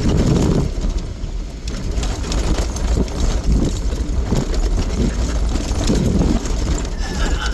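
Off-road vehicle's engine running with a steady, loud low rumble as it crawls over a rough trail, heard from inside the cab, with irregular louder surges as it works over the terrain.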